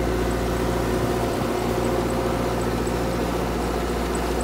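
Engine of a Berkenheger aquatic weed-harvesting boat running steadily at a constant pitch.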